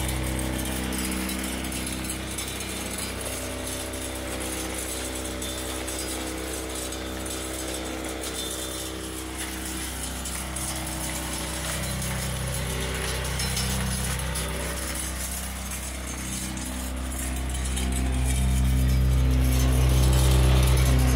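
SaltDogg tailgate salt spreader running, its electric spinner motor humming steadily while the spinner throws rock salt, the granules ticking against the concrete and a rubber mud-flap mat. The hum grows louder about seventeen seconds in.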